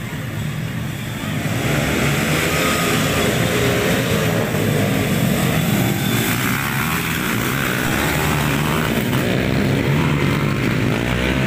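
Engines of a pack of small motorcycles racing on a dirt track, running at high revs. They grow louder about a second and a half in as the bikes come close.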